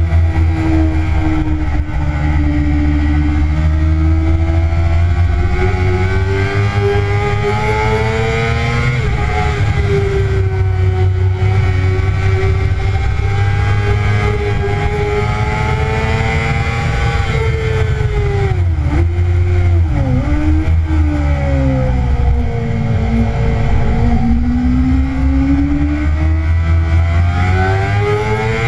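2009 Kawasaki ZX-6R's 599 cc inline-four engine at high revs on a race track, its pitch rising and falling as the rider accelerates and brakes through corners, with a few quick dips in pitch about two-thirds through as it shifts down. Heavy wind rumble on the microphone lies under it.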